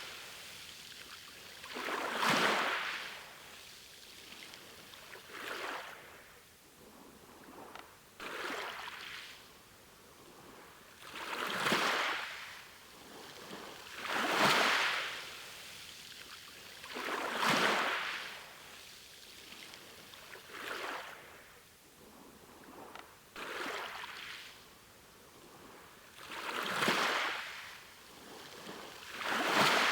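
Small sea waves washing ashore, each wash of water swelling and fading about every three seconds over a faint steady rush.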